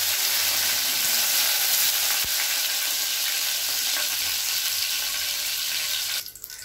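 Fresh curry leaves sizzling in hot coconut oil with popped mustard seeds in a stainless steel pan. The sizzle is steady and cuts off suddenly near the end.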